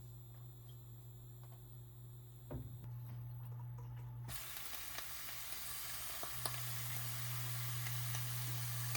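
Food sizzling in a hot frying pan; the sizzle starts suddenly about four seconds in, over a steady low hum, with a brief knock just before.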